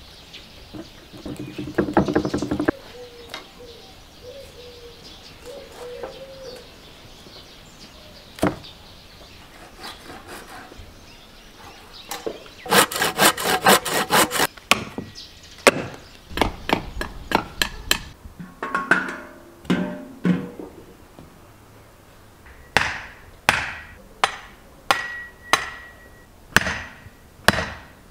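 A handsaw cutting through a thin wooden branch in a quick run of strokes about halfway through, then wooden stakes being driven into the ground with heavy blows from a wooden pole, about eight blows evenly spaced near the end.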